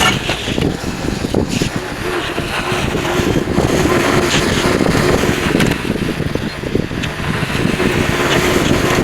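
Tractor engine running steadily with a low rumble, as the tractor plows snow.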